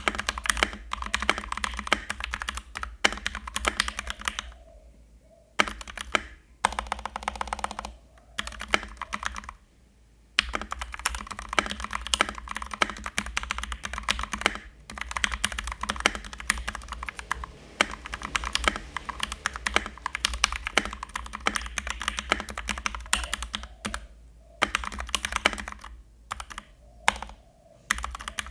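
Fast typing on a Keychron K2 mechanical keyboard: quick runs of key clacks, broken a few times by pauses of about a second.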